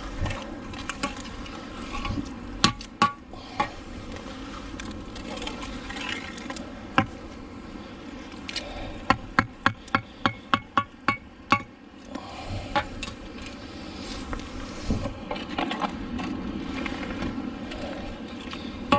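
Metal knocks and clicks as pieces of old iron fencing are handled on a neodymium fishing magnet, with an even run of about ten quick clicks near the middle.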